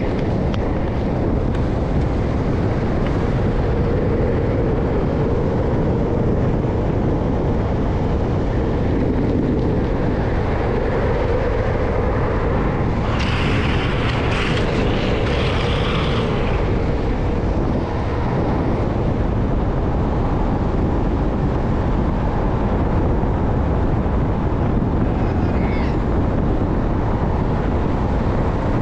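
Wind rushing over the microphone and urethane skateboard wheels rolling on asphalt at downhill racing speed: a steady, loud rush. Near the middle a harsher hiss comes in for about three seconds.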